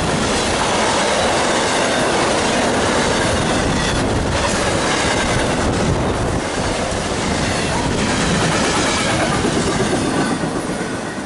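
Intermodal freight train's loaded well cars rolling past at about 60 mph: a steady loud rush of steel wheels on rail, easing slightly near the end.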